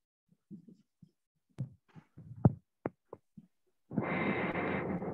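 Handling noise from a call participant's open microphone: scattered soft knocks and clicks, then about four seconds in a harsh burst of rushing noise that lasts just over a second and cuts off sharply.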